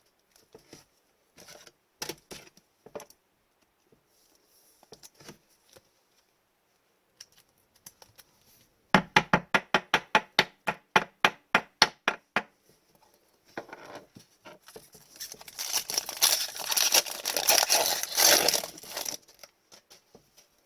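Wrapper of an Upper Deck hockey card pack being torn open and crinkled for several seconds near the end. Before it, a quick even run of about twenty sharp clicks, with scattered light handling clicks early on.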